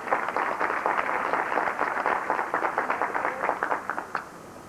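Audience applauding with many hands clapping, stopping fairly abruptly about four seconds in.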